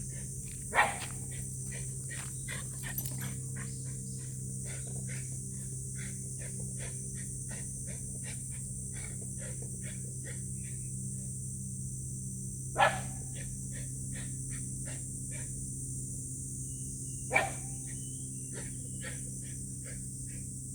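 A Shiba Inu barking sharply three times: once about a second in, again about twelve seconds later, and once more a few seconds after that. Between the barks comes a continuous run of quick, light clicks and taps.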